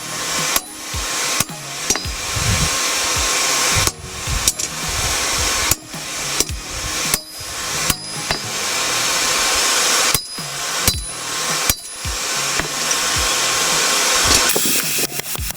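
Hammer blows on hot steel at the anvil while a sword blade is drawn out, coming in runs about a second apart with short pauses, over a steady rushing noise. Near the end a quicker run of shorter, lighter sounds begins.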